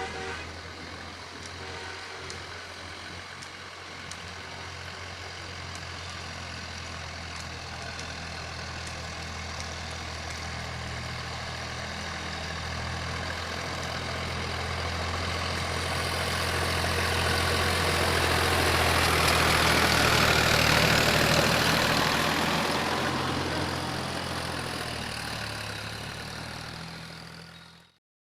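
Tractor's diesel engine running steadily, growing louder as it comes close about two-thirds of the way through, then fading before the sound cuts off abruptly near the end.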